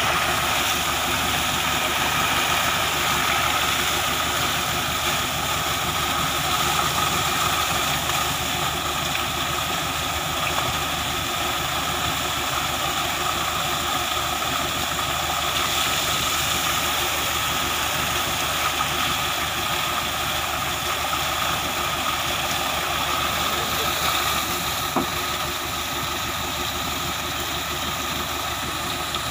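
A thick jet of water from a motor-pump hose splashing steadily onto a tractor and its rotavator, over an engine running steadily at idle.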